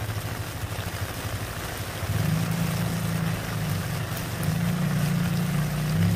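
Heavy rain pattering densely into a puddle, with a low steady hum underneath that steps up in pitch and gets louder about two seconds in.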